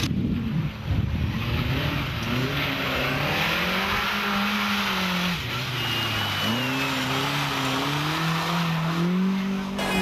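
Rally car engine at full throttle, its pitch climbing with the revs, then dropping as the throttle comes off about five seconds in and climbing again. A brief high tyre squeal comes about six seconds in.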